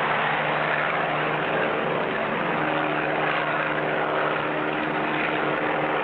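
Propeller airplane engine running steadily as the plane flies overhead, a continuous drone with a low steady hum under it.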